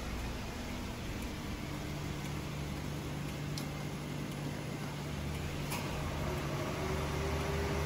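A steady low mechanical hum, with a faint click about three and a half seconds in and another near six seconds.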